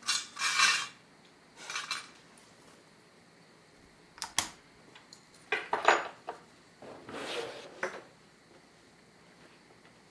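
Light clattering and clinking of small hard objects being handled, in several short bursts, loudest about six seconds in.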